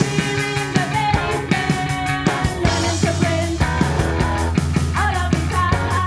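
Background music with a steady drum beat.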